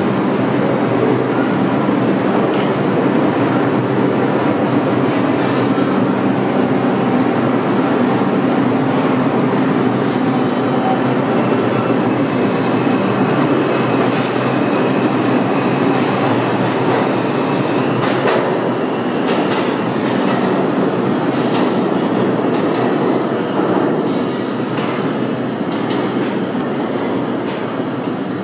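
R142 subway train pulling out of an underground station: its motors and steel wheels run loud as it speeds past, with some wheel squeal and clickety-clack over the rails. The sound fades in the last few seconds as the train moves off into the tunnel.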